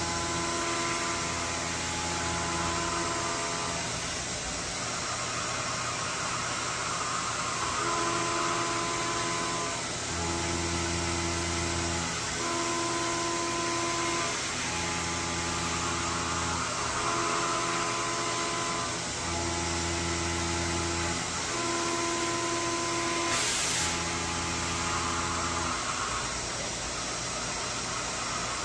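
SYIL X7 CNC vertical mill cutting a metal part with an end mill: steady spindle whine with cutting noise that swells and eases at regular intervals of a couple of seconds as the tool works through its passes. A brief hiss near the end.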